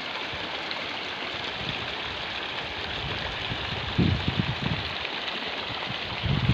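Steady rushing water of a waterfall. A few low gusts of wind buffet the microphone about four seconds in.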